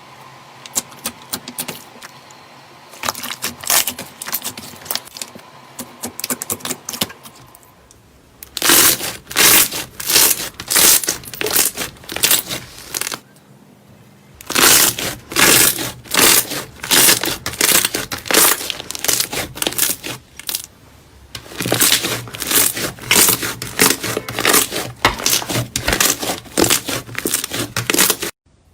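Slime being squeezed and pressed by hand, a dense run of sticky popping crackles. Soft and sparse for the first several seconds, then much louder, with two short pauses, and it cuts off just before the end.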